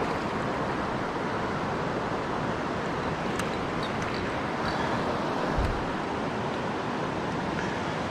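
Steady rush of a mountain stream's flowing water, with one brief low thump about five and a half seconds in.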